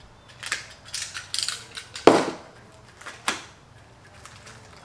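Metallic clicks and knocks from a screwdriver working on an aluminium slide rail, opening up its end. There is a sharp knock about two seconds in and another about a second later.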